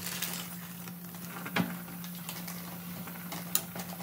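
Handling noises while preparing instant noodles: light rustling and scattered clicks, with a sharper knock about one and a half seconds in and another near the end, over a steady low hum.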